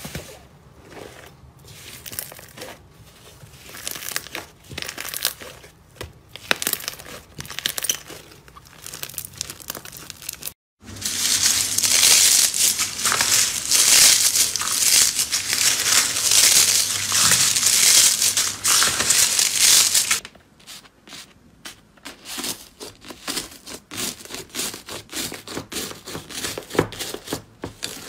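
Hands squeezing and pressing fluffy slime, with soft irregular sticky crackles; after a brief break, a hand rummaging through a pile of shredded purple flakes makes a much louder, dense, continuous crinkling for about ten seconds; then kneading pink fluffy slime gives sparser sharp clicks and pops.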